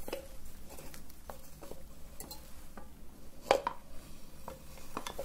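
Light taps and clinks of small hard objects against each other, about nine in all, several with a brief ring; the loudest comes about three and a half seconds in.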